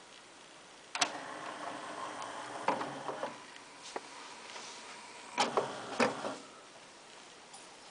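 Sony CDP-C345 carousel CD changer's tray closing: a click about a second in, a motor whir for about two seconds ending in clunks, then a cluster of mechanical clicks and clunks about five and a half seconds in as the changer loads the disc.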